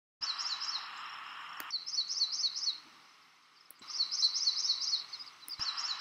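Songbird singing about four short phrases, each a quick run of repeated high chirps. They sit over a hiss of background noise that cuts in and out with the phrases.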